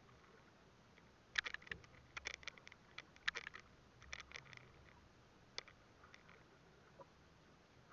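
Handline fishing gear being handled on a small boat: a quick cluster of light clicks and taps as the line is hauled in by hand, then one more click a little later, over faint steady background noise.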